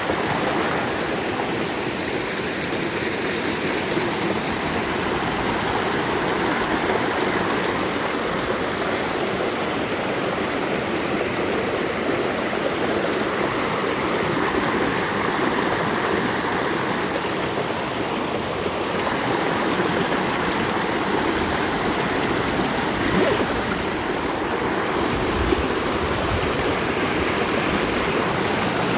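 Mountain valley stream rushing steadily, a continuous full-bodied flow of water.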